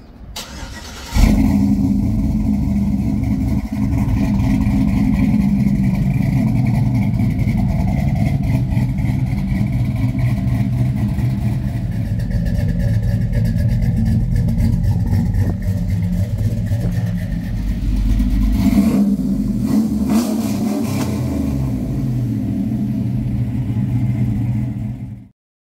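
2003 GMC Sierra's V8, fitted with long-tube headers and a Flowmaster exhaust, starting about a second in and then running at a steady idle through the exhaust, with a short rev about three-quarters of the way through. The sound cuts off suddenly near the end.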